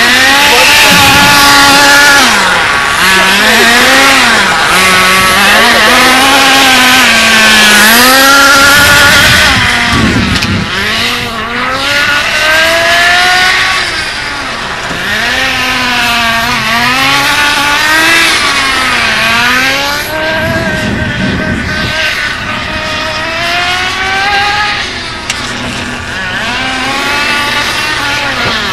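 Small nitro glow engine of a Smartech RC buggy running at high revs, its pitch rising and falling again and again as the throttle is worked. Two brief low rumbles come about ten and twenty seconds in.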